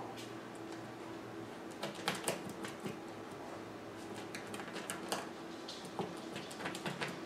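A puppy moving about at a plastic toy slide makes irregular light clicks and taps, some in quick clusters, starting about two seconds in. A faint steady low hum runs underneath.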